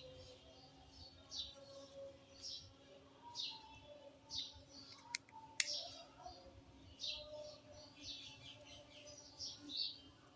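Small birds chirping over and over, short high chirps about once or twice a second, with two sharp clicks about five seconds in.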